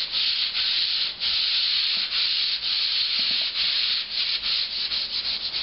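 A SimpleSander sanding-glove pad being rubbed back and forth over a drywall surface, giving a continuous scratchy rasp in strokes of about half a second. The strokes get shorter and quicker near the end.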